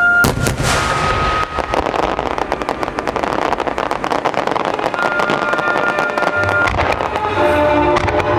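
Aerial fireworks in a grand finale: a loud burst just after the start, then a dense, continuous crackle of many small shell breaks, with music playing underneath.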